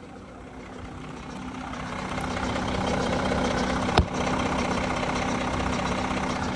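VW Touareg V6 3.0 TDI diesel idling at standstill with its unexplained extra noise, which comes on once the car is driven and lasts for the first few kilometres. A steady hum with a low drone under it, rising in loudness over the first few seconds and then holding. One sharp click about four seconds in.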